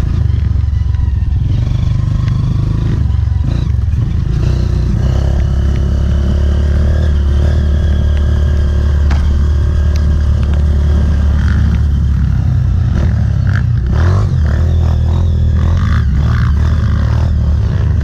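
Honda CRF trail bike's single-cylinder four-stroke engine running at a fairly steady speed while riding. The revs change briefly a few seconds in and again in the last third, with some clatter over rough ground.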